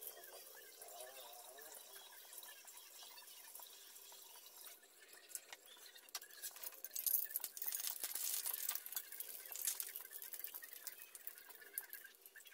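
Squash fritter sizzling and crackling in hot oil in a wok. The frying gets louder and denser about halfway through, as a spatula works in the pan.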